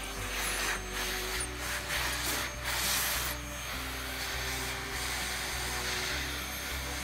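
Vacuum cleaner sucking dust from a cut-out pocket in a boat rudder: a steady rushing hiss that surges and fades as the nozzle is moved over the surface. Background music with a bass line plays underneath.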